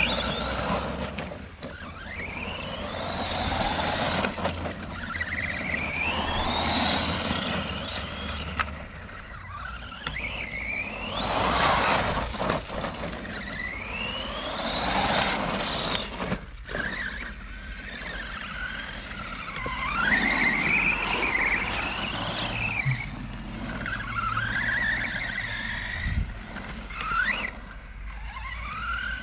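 Redcat Camo TT Pro RC trophy truck on a 3S LiPo, its brushless motor and drivetrain whining as it throttles up and lets off. The pitch climbs and falls again and again.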